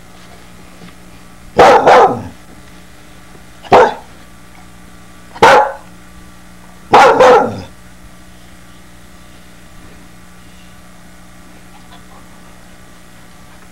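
Soft-coated wheaten terrier puppy barking in four short bursts: a quick double bark, two single barks, then another double bark, after which it falls quiet.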